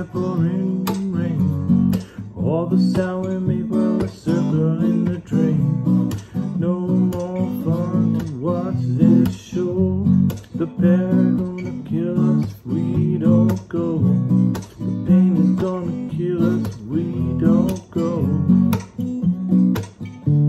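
Acoustic guitar strummed chords in a steady rhythm, an instrumental passage with no singing.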